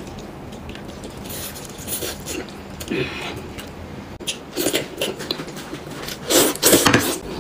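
Close-up eating sounds: a person chewing and slurping noodles, in short noisy bursts that get louder toward the end.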